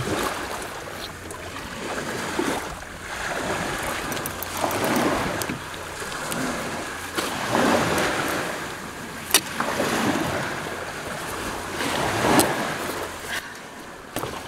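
Small waves washing onto a sandy shore and against the boat, swelling in surges every two to three seconds, with a couple of sharp clicks.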